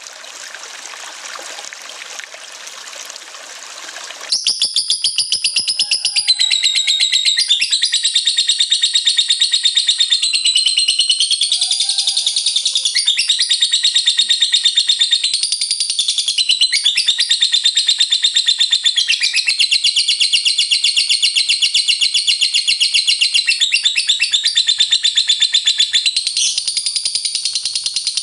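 Running water for about four seconds, then a lovebird breaks into its long ngekek: a loud, rapid, high chattering trill that runs on without a break, shifting pitch every few seconds.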